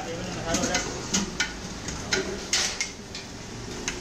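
Metal spoon clinking and scraping against large steel cooking pots and a foil takeaway tray as dal is ladled out, a string of sharp clinks with the loudest about two and a half seconds in.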